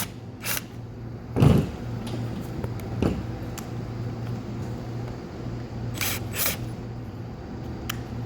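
A steady low hum, with a loud knock about one and a half seconds in and a softer one near three seconds. Near the end come two short strokes much like the bursts of the driver fastening the seat belt screws just before.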